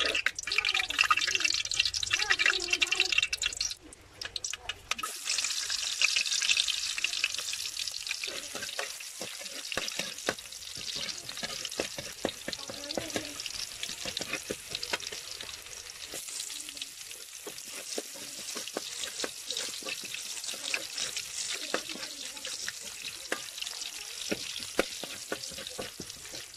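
Hot oil sizzling in a metal wok as chopped garlic fries in it, stirred with a metal ladle that scrapes and clicks against the pan. The sizzle dips briefly about four seconds in, then comes back stronger.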